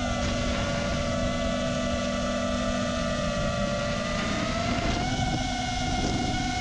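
FPV racing quadcopter's four T-Motor F60 Pro II 2700kv brushless motors and props whining in flight, the whine rising in pitch around four to five seconds in as throttle is added, over a steady rush of wind noise.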